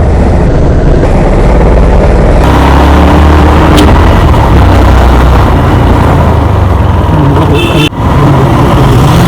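Road vehicle noise with a heavy, steady low rumble, broken by a brief dip about eight seconds in.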